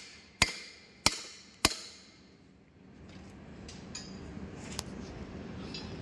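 Hammer driving a steel drift onto a ball bearing to seat it in a BEML BD155 bulldozer transmission housing: three sharp metallic blows about half a second apart, each ringing briefly. The blows then stop and only faint clinks follow.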